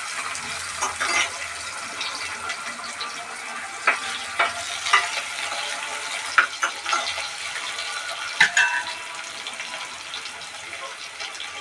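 Chopped onions sizzling steadily in hot oil in an aluminium pressure cooker, while a steel spoon stirs them and clinks against the pot several times.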